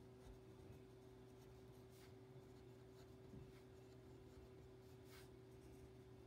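Near silence: room tone with a faint steady hum and a couple of faint pen strokes on paper, around two and five seconds in.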